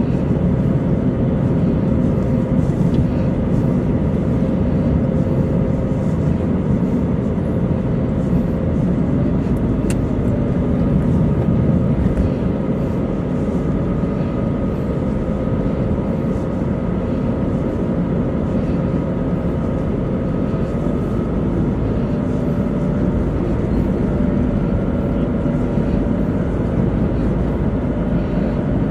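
Steady road noise heard inside a moving car: engine and tyre rumble, with a faint humming tone that wavers slightly in pitch.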